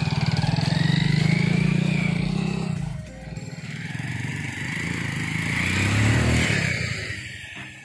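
Small motorcycle engines running at close range, one revving up about six seconds in and then fading away.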